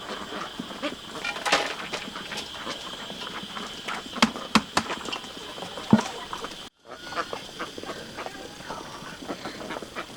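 Ducks quacking amid farmyard sounds, with several sharp knocks about four to six seconds in. The sound cuts out briefly near the middle.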